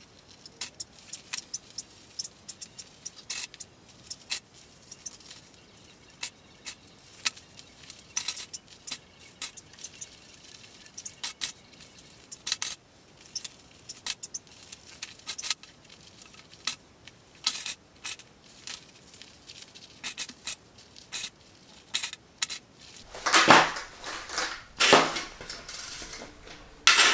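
Small plastic sewing clips clicking shut one after another as they are snapped onto the fabric edges, with fabric rustling between the clicks. Near the end there is a longer stretch of louder fabric handling.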